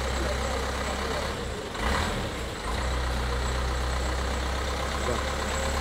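Diesel engine of an Eicher 10.50 minibus idling with a steady low hum, briefly broken about two seconds in.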